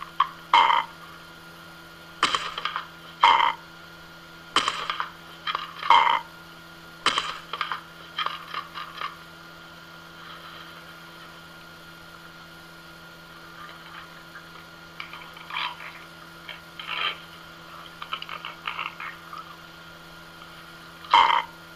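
Amazon parrot giving a series of short, harsh, raspy squawks and growls, bunched in the first half, fainter for a while, then a loud one near the end, over a steady electrical hum.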